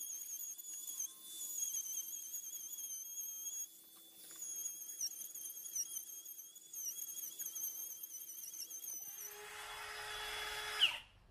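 Milwaukee cordless palm router running at high speed as its bit cuts a recess into hard structural timber. Its high whine wavers and dips under load, with a short drop about four seconds in. Near the end the note changes, then the sound stops abruptly.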